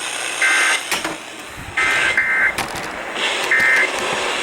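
Emergency Alert System end-of-message data bursts, the "burps": short digital two-tone chirps near 2 kHz, four in a row, two of them nearly back to back, over steady background noise. They mark the end of the test message.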